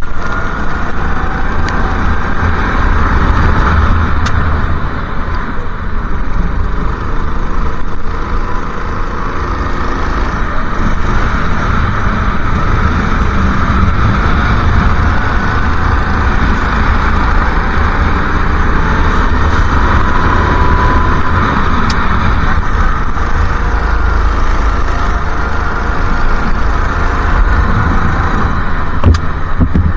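Go-kart engine running at racing speed, its note drifting up and down through the corners, heard from an onboard camera with a heavy low rumble of wind and spray on the microphone.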